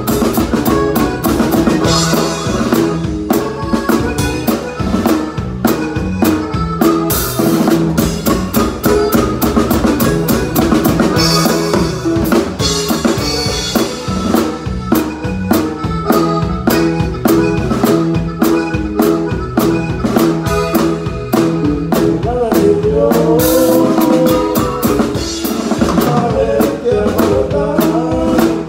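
Drum kit played live with a norteño band: a steady snare and bass drum beat with hi-hat and rim clicks over the band's bass and chords. Crash cymbals wash over it a few times, and a melodic line comes in near the end.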